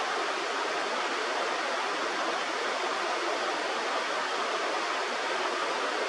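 Steady, even rush of flowing river water, as from rapids on a mountain stream.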